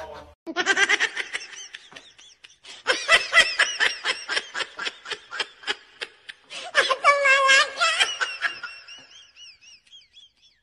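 Hearty human laughter: rapid runs of high-pitched 'ha' bursts, several a second, trailing off into faint high squeals near the end.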